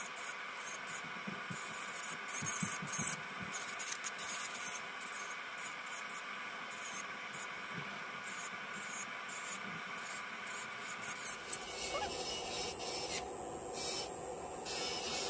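Electric nail drill (e-file) running with a steady high whine as its bit files an acrylic nail. The tone of the whine changes about twelve seconds in.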